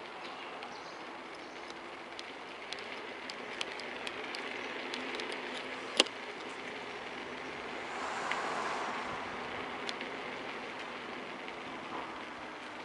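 Kugoo V1 Plus electric scooter riding along: steady road and wind noise, with scattered light clicks and rattles that fit the squeaking phone holder. There is one sharp click about six seconds in and a swell of noise around eight seconds.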